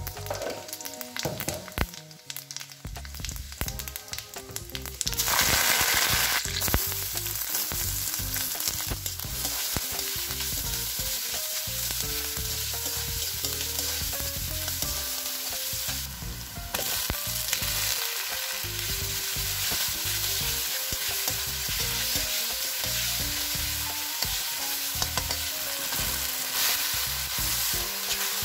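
Food frying in hot oil in a kadhai, stirred with a spatula. About five seconds in the sizzling jumps up loud as ingredients go into the oil, then settles into steady sizzling and stirring.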